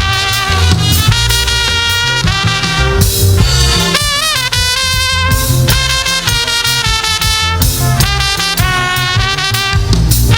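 Live gospel praise band music with a steady drum and bass beat under a sustained, gliding melodic lead.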